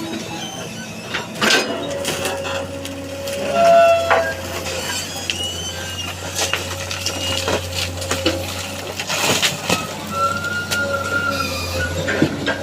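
Excavator at work: a steady engine hum under a wavering hydraulic whine, with scattered knocks and clatters of wooden pallets being picked up and loaded.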